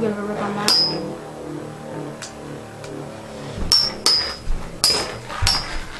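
Two Beyblade Metal Fury spinning tops, Forbidden Eonis and Cosmic Pegasus, whirring steadily in a plastic stadium, with sharp metal clinks as they strike: one about a second in, then several in quick succession in the second half.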